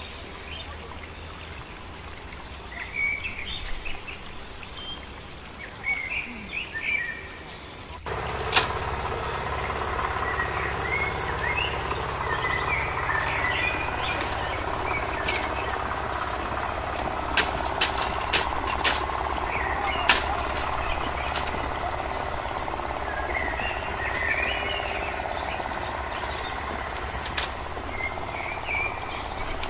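Machete blade chopping into bamboo stems: a few sharp knocks, several close together a little past the middle. Forest ambience underneath, with a steady high insect drone and birds chirping.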